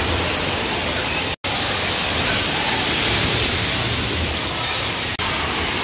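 Steady rush of water at an indoor water-play area: water running down the slides and pouring from a tipping bucket on the play structure. A brief gap of silence breaks it about a second and a half in.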